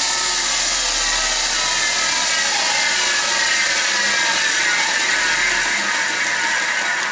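An electric sharpening grinder runs steadily with a knife blade held against it, making a continuous grinding hiss with a faint wavering whine.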